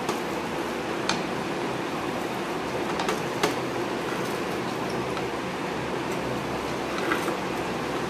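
A kitchen knife clicking and scraping against an iron pan while slicing an omelette: a few short sharp clicks, the loudest about three and a half seconds in, over a steady background hum.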